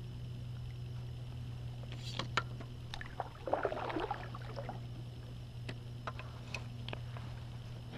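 Handling noise on a fishing kayak: scattered light clicks and knocks, and a short splash-like rustle about three and a half seconds in, over a steady low hum.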